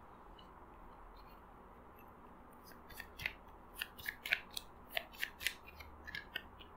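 A deck of tarot cards being shuffled by hand. After a quiet start, a run of short crisp card snaps begins about three seconds in, roughly two a second.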